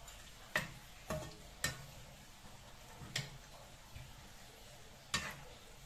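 Metal spatula knocking and scraping against a frying pan while stirring sliced chayote and tofu in broth: about five sharp knocks at uneven intervals, three of them close together in the first two seconds.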